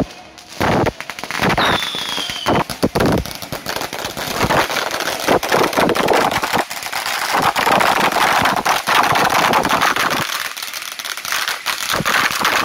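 Firecrackers going off: a few separate sharp bangs over the first seconds, then a long string crackling in rapid, continuous succession.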